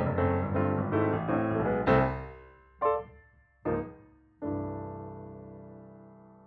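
Piano music: a busy passage of notes that thins out, two short separate chords, then a final chord struck about four seconds in and left ringing until it fades away.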